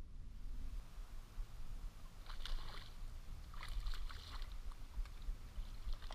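Shallow river water splashing and lapping softly, with brief splashy bursts about two and a half and four seconds in, over a steady low rumble.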